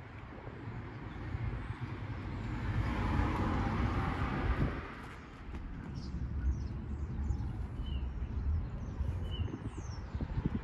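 Outdoor background noise: a low rumble throughout, a louder swell of broad noise from about two to five seconds in, and a few faint bird chirps later on.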